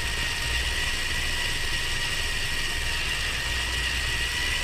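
Steady engine and road noise inside a moving car, a low rumble with a faint high whine over it.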